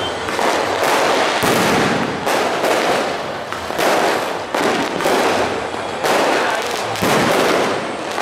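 Fireworks going off one after another, a sharp bang roughly every second, each trailing off into a noisy rush that runs into the next.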